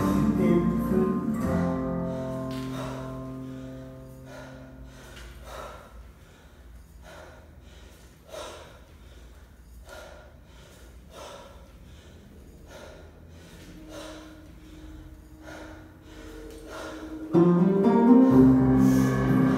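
Background music with guitar. Held chords fade into a quiet stretch of soft, evenly spaced strokes, then a louder full passage comes in suddenly near the end.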